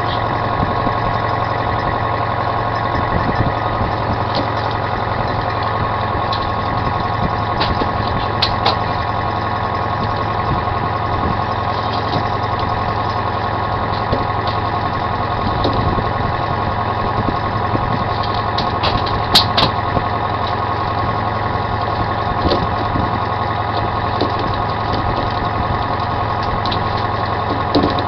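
A fishing boat's engine running steadily with a constant hum, with a few short sharp knocks of gear on deck, the loudest about two-thirds of the way through.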